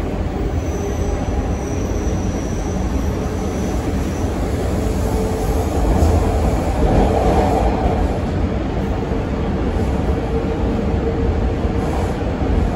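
A TTC T1 subway train running between stations, heard from inside the car: a steady heavy rumble of wheels and motors on the track. A faint high whine sounds in the first few seconds, and a steady hum joins from about five seconds in. The noise swells a little around the middle.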